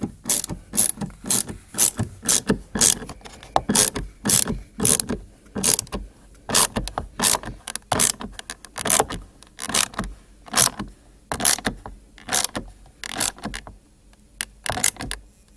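Small hand ratchet with a T30 Torx bit clicking in short back-and-forth strokes as door trim screws are run in, the clicking stopping near the end.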